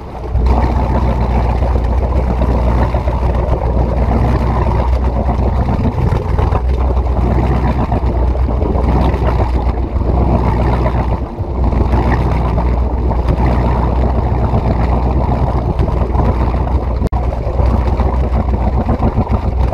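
1976 ski boat's engine idling as the boat eases up to a dock, a steady low running sound that stops abruptly at the very end.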